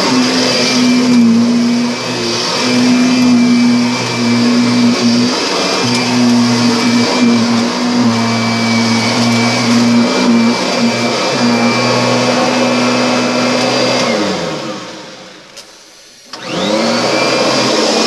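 Upright vacuum cleaner running on carpet with a steady motor hum. About fourteen seconds in it is switched off and winds down, a click sounds in the short lull, then it is switched back on and spins up to full speed.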